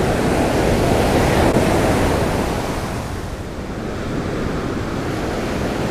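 Ocean surf breaking and washing up the sand beach, a steady rushing wash that eases off a little about three seconds in.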